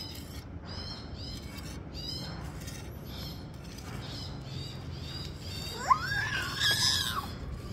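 Small birds chirping over and over in short high notes. About six seconds in there is a sharp click, then a louder bird call that rises, holds and falls for a little over a second.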